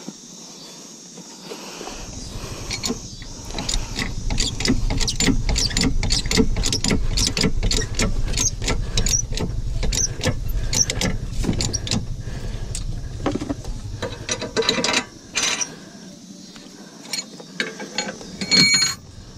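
Hitch-mounted dirt bike carrier being worked as the bike is loaded: a long run of rapid metallic clicks and clanks, thinning out toward the end, with a brief high squeak near the end.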